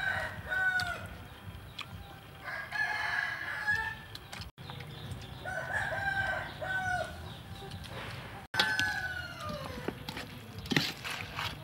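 A rooster crowing four times, about every three seconds, the last crow trailing down in pitch.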